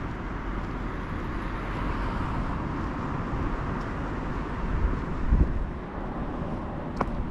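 Outdoor street ambience of steady road traffic, with low rumbling bumps about five seconds in and a short click near the end.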